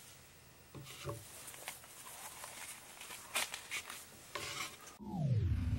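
Faint handling sounds: an epoxy resin panel in a small wooden frame being turned over in the hands and set down on a workbench, with light rubs and a few soft taps. Near the end a tone falls in pitch and music starts.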